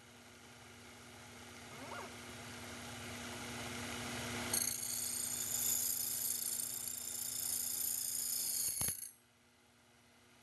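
Sherline CNC mill cutting a gear tooth with a slitting saw. A steady motor hum, a brief rising whine about two seconds in, then a high hissing cutting noise from about four seconds in that stops abruptly near the end.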